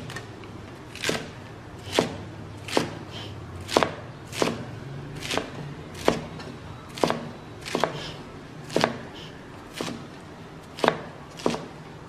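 A metal cleaver chopping through a bunch of leafy green stems onto a round wooden chopping block: sharp, even knocks at a steady, unhurried pace, a little more than one a second.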